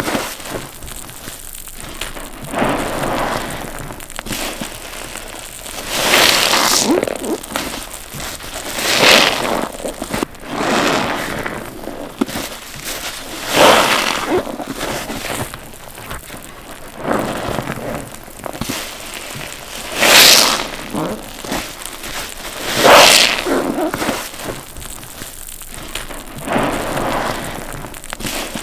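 Wet block sponges squeezed by hand again and again, each squeeze a short burst of squishing and running water, roughly every two to four seconds.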